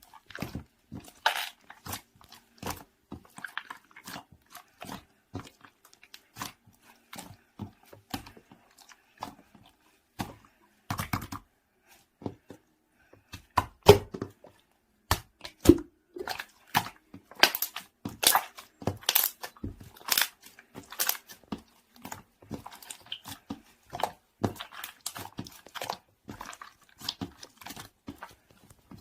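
Slime layered on slime being squished and pressed by hand, making irregular sticky clicks and pops, densest and loudest in the middle of the stretch.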